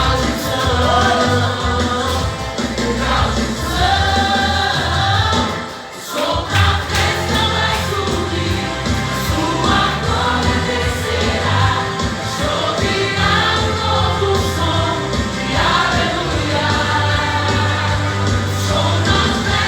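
Music: several voices singing over a band with a steady bass line, dipping briefly about six seconds in before carrying on.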